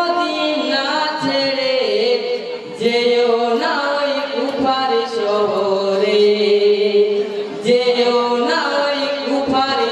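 A male voice chanting a Bengali marsiya, a Muharram lament, in long, held melodic phrases into a microphone and through a PA, with short breaks about three and eight seconds in.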